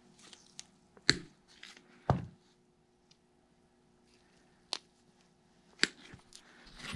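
Hand crimping tool squeezing a swage sleeve onto a loop of steel wire rope: several sharp clicks and clacks from the tool and cable, the loudest about one and two seconds in and another near the end.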